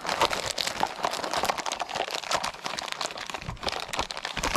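Packaging of new universal joint parts crinkling and rustling as it is opened by hand, a dense run of crackles and small clicks.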